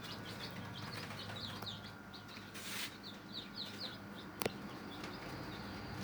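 Newly hatched day-old chicks peeping: many short, high, falling cheeps in quick succession over a steady low hum, with one sharp click about four and a half seconds in.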